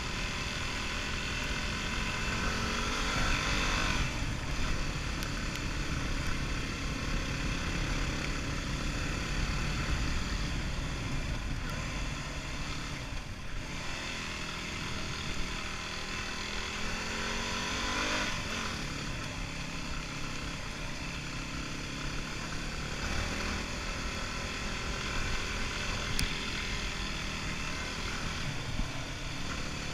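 Yamaha WR250R's single-cylinder four-stroke engine running as the dirt bike is ridden along a trail, its pitch rising as it accelerates about three seconds in and again past the midpoint, then falling back. A steady low rumble of wind runs under the engine.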